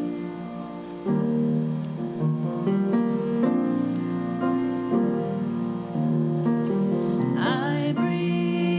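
Keyboard playing slow sustained chords, with a singer's voice coming in near the end.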